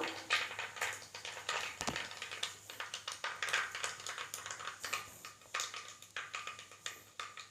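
Mustard seeds popping and spluttering in hot oil in a clay pot, a scatter of irregular sharp crackles.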